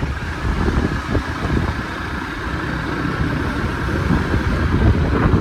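Motor scooter running while being ridden, its engine noise mixed with a loud, uneven low rumble.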